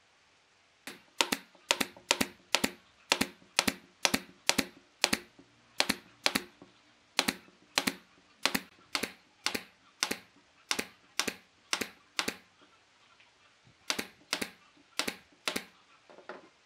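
Pneumatic nail gun firing repeatedly into thin wooden strips and a wooden hub: sharp snaps at about two a second, more than twenty in a row, then a short pause and four more near the end.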